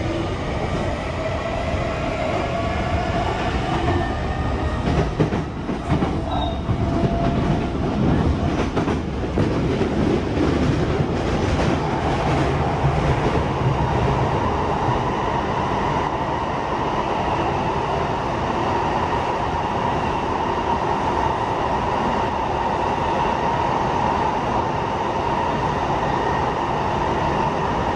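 Sotetsu 20000 series electric train running, heard inside the passenger car. Over the first several seconds the Hitachi hybrid SiC-VVVF inverter and traction motors whine in a few tones rising slowly in pitch as the train gathers speed, with rail joints clicking, then the ride settles into a steady rumble with a held hum.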